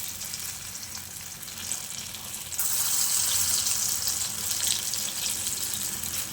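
Batter-coated stuffed spiny gourds sizzling in hot mustard oil in a kadai, a steady frying hiss that grows louder about two and a half seconds in.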